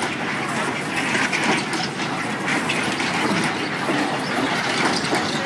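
Spinning tub ride running: a steady rumble and clatter from the cars' wheels and mechanism on the track, heard from inside a moving car.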